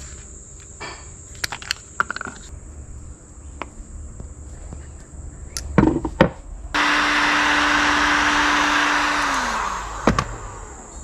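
Ryobi heat gun switched on with a click, its fan blowing steadily for about three seconds over heat-shrink tubing on a wire joint, then switched off, the motor's hum falling as it spins down. Before it come a few small clicks of handling and scissors.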